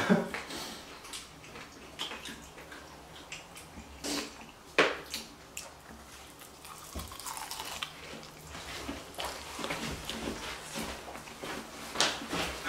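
Eating sounds: chewing and the handling of fried chicken wings and cardboard buckets, with scattered small clicks and knocks, the sharpest about five seconds in.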